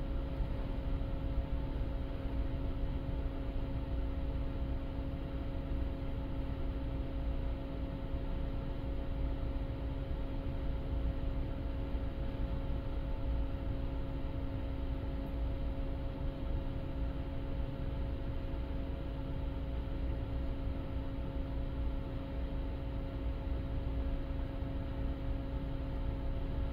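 Steady drone of a car ferry's engines and machinery: a low rumble with a constant hum, unchanging throughout.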